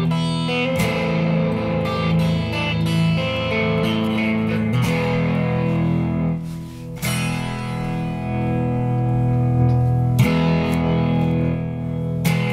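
Electric guitar played through Fairfield Circuitry effects pedals: ringing, sustained notes and chords, with a fresh strike every few seconds and a short drop in level just before one of them.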